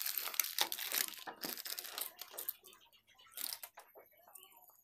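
Thin plastic packaging crinkling and rustling as it is slit open with a snap-off utility knife and handled, in a run of rustles through the first couple of seconds and one more brief rustle later. Faint small clicks follow near the end.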